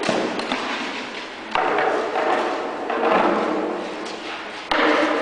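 Spear shafts knocking against round wooden shields in sparring: a few sudden thuds, about a second and a half apart, each fading with a hall echo.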